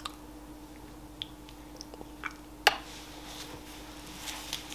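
A small dog licking and smacking its lips: a few soft, wet clicks and smacks, one sharper click almost three seconds in, over a faint steady hum.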